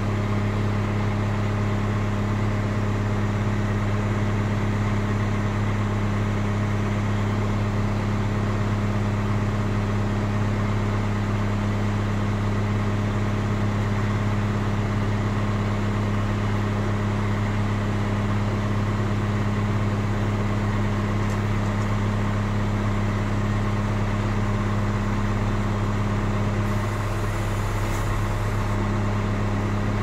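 Diesel engine of a JCB backhoe loader running at a steady speed, a constant low drone with no revving.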